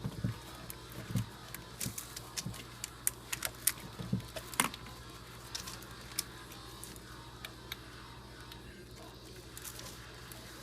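Spark plug wire boots being handled and pushed onto a distributor cap: scattered small clicks and knocks, busiest in the first five seconds and sparser after, over a faint steady low hum.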